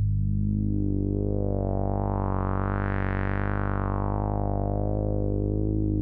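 Dreadbox Nymphes analog polysynth, played through an Eventide Rose analog delay, holds a low sustained note. Its filter slowly opens to a bright peak about three seconds in, then closes again.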